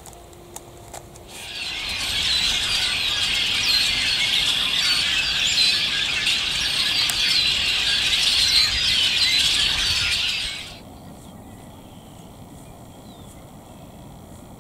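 A flock of red-winged blackbirds chattering: many overlapping, squeaky chirps and calls at once. The sound comes in about a second and a half in and stops abruptly near the end.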